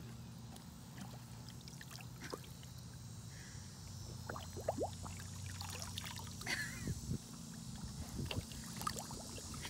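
A Great Dane with his muzzle in shallow pond water, lapping and mouthing at the water and grass: small irregular slurps and splashes. A steady low hum runs underneath.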